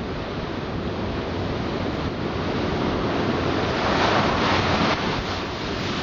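Storm wind buffeting the microphone over heavy breaking seas: a steady rushing noise that swells louder about four seconds in.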